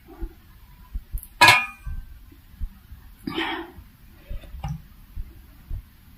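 Stainless steel steamer lid clanking against the pot about a second and a half in, with a brief metallic ring. A shorter rustling scrape follows a couple of seconds later, and soft low knocks come throughout as dumplings are lifted out of the steamer.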